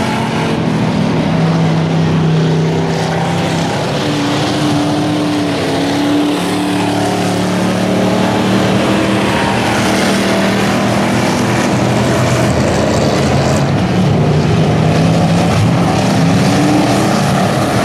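Dirt-track stock cars circling the oval, several engines running together at steady, moderate revs, their pitches shifting up and down a little as the cars go around.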